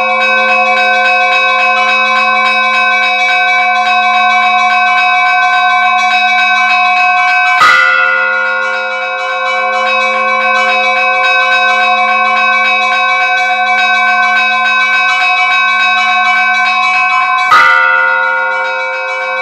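Church bells ringing: several bells chime rapidly and without a break, their tones overlapping and sustained. Twice, about ten seconds apart, one louder, deeper strike rings out over them.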